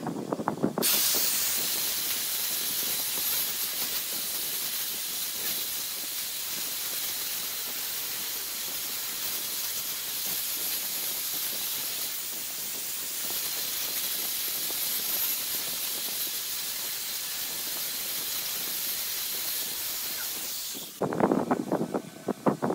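Handheld angle grinder with an abrasive disc grinding the face of a motorcycle brake disc: a steady, high hiss that starts about a second in and cuts off suddenly near the end. A few knocks come before it starts and a clatter of knocks after it stops.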